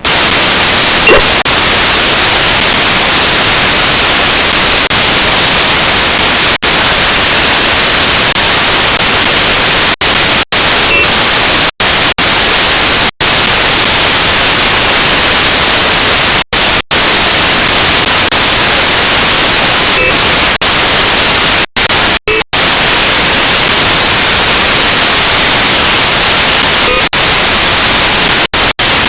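Loud, steady static hiss with no pitch to it. It cuts out suddenly to near silence for a split second about a dozen times.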